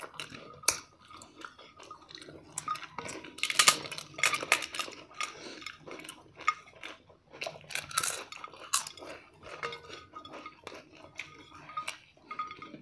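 Two people eating with their fingers from plates: irregular small clinks, taps and scrapes of hands and food against the plates, mixed with chewing.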